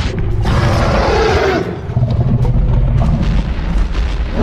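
Loud booming and roaring sound effects over music, with a brief dip about halfway through.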